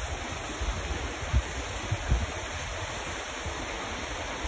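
Wind on a phone's microphone: a steady rushing noise with irregular low buffeting thumps.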